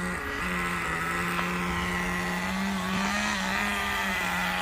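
Nitro RC car's small two-stroke glow-plug engine running with a steady buzz. Its pitch rises slightly about halfway through as the throttle opens, then settles back near the end.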